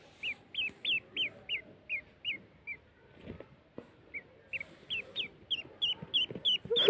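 Duckling peeping: a string of short, high cheeps about three a second, a pause of a second or so, then another string of cheeps. A brief thump right at the end.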